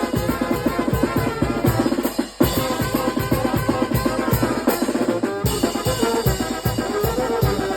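Mexican wind band (banda de viento) playing, led by dense, fast bass drum and snare drumming under brass and woodwind lines, with a brief break about two and a half seconds in.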